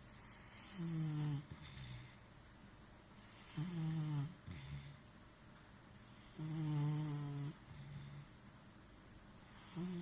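Snoring: four pitched snores, one about every three seconds. Each lasts about a second and is followed by a softer, lower breath.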